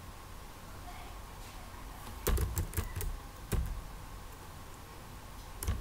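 Typing on a computer keyboard: a quick run of keystrokes a couple of seconds in, then a few more keystrokes near the end.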